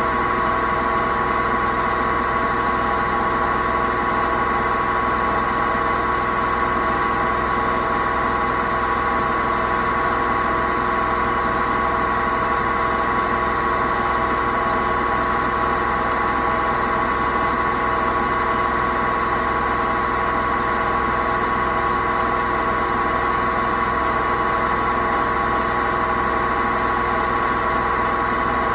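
Hoover VHD 9163 ZI washing machine drum spinning at a steady speed, a loud, even drone with a held whine. The noise comes from its broken drum bearings.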